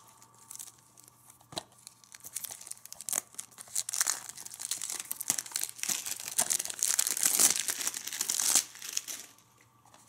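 Cellophane shrink-wrap being torn and peeled off a DVD case, crinkling, with a few sharp clicks. The crinkling is sparse at first, then busiest and loudest from about four seconds in until shortly before the end.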